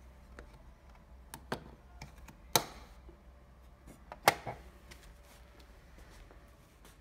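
Sharp plastic clicks and knocks from a steam-vacuum cleaner's clear plastic tank lid being handled and snapped shut over the water-tank caps: a few light taps, then two loud clicks about two and a half and four seconds in.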